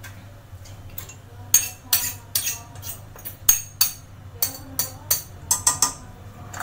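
A metal spoon stirring in an aluminium pressure cooker, knocking and scraping against its sides in sharp, bright clinks at an irregular pace of roughly two a second, starting about a second and a half in. It is mixing chopped ridge gourd and moong dal.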